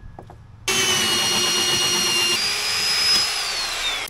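Corded electric drill spinning a hole saw through a plywood cabinet wall, cutting a vent hole. It starts about a second in and runs steadily with a motor whine that drops in pitch near the end, then cuts off abruptly.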